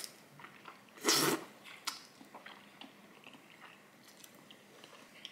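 Close-miked eating: one loud slurp of a long, chewy malatang noodle strand about a second in, then soft wet chewing and mouth clicks.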